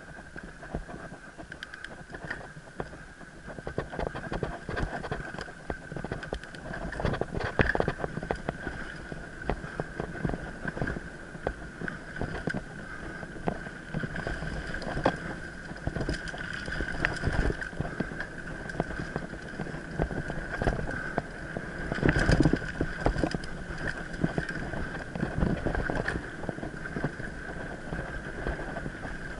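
Mountain bike ridden fast over a rough forest trail, heard from a head-mounted camera: constant rattling and knocking from the bike and mount over bumps, with a steady high whine underneath. The hardest jolts come about a quarter of the way in and again past the middle.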